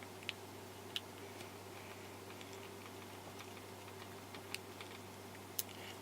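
Light, scattered clicks and taps of small repair tools on a smartphone's internals as tiny screws are put back in, over a faint steady hum.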